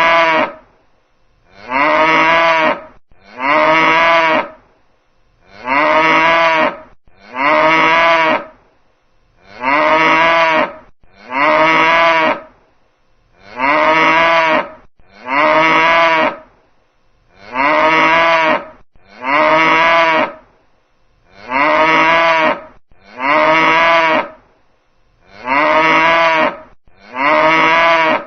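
A cow mooing again and again: short, loud moos just under a second long, coming in pairs about every four seconds, each moo sounding the same.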